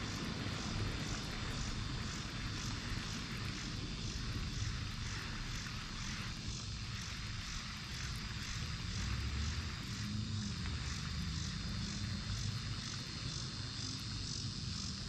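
A steady, low engine drone whose pitch wavers slowly up and down, with a faint, even chirping of insects above it.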